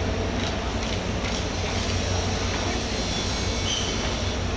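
Steady low rumble of running machinery, an even hum with a noisy wash over it.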